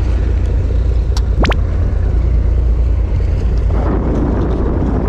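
Fishing boat's engine running with a steady low rumble, with wind and sea noise. A short, sharp rising chirp sounds about a second and a half in, and the rumble grows fuller near the end.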